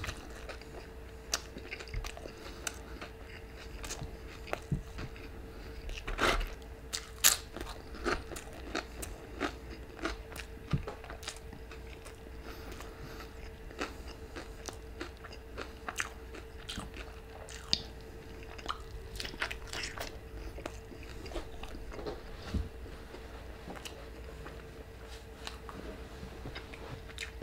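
Close-up chewing and biting into a crispy birria queso taco, with scattered crunches, the loudest a few seconds in. A faint steady hum sits underneath.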